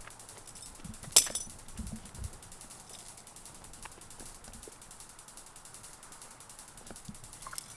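A butterfly knife (balisong) handled and flipped open: its metal handles click, with one sharp click about a second in and then faint, scattered light clicks.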